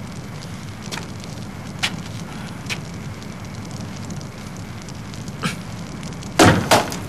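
Open brazier fire crackling, with scattered single pops over a steady low hiss. Two louder sudden sounds close together near the end.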